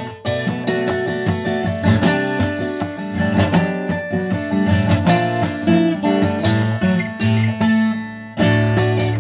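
Steel-string acoustic guitar played fingerstyle: a picked melody over ringing bass notes. Near the end it drops off for a moment, then comes back with a loud struck chord.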